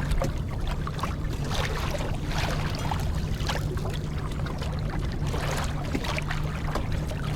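Water lapping and splashing against a kayak hull in irregular slaps, over a steady low hum.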